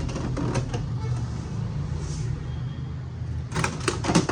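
Plastic clicks and rattles of a toner cartridge being pulled out of a Canon imageClass MF221D laser printer and handled: a few near the start and a cluster near the end, over a steady low hum.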